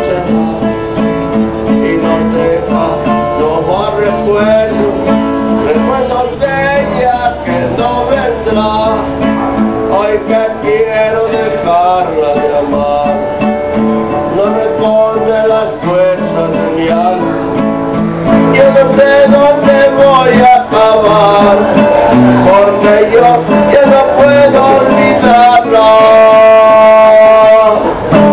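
Music: acoustic guitar playing with a singing voice over it.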